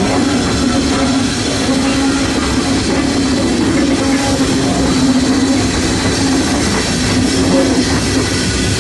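Small steam locomotive running, heard from its footplate: a steady, loud mix of hiss and rumble with a held tone that drops out briefly now and then.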